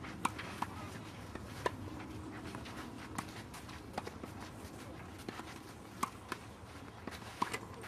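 Tennis balls being struck with a racket and bouncing on a clay court: a series of sharp pops a second or so apart, each racket hit with a short ring.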